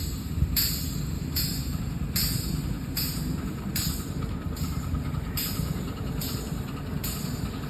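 Ridable live-steam miniature locomotive chuffing at an even pace, one exhaust beat a little under every second, over a steady low rumble of wheels on the rails.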